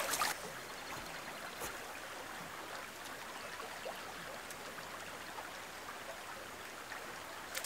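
Small, shallow creek flowing: a steady, faint rush of running water.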